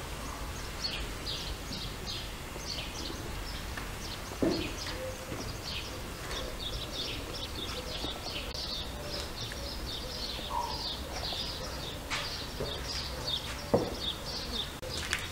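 Small birds chirping steadily, a quick stream of short high calls, with two knocks, one about four seconds in and one near the end.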